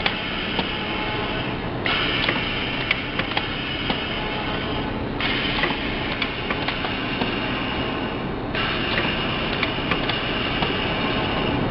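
Automatic lunch-box sealing machine running, its press heads and conveyor clicking and clacking over a steady mechanical din. The noise starts a fresh cycle about every three and a half seconds.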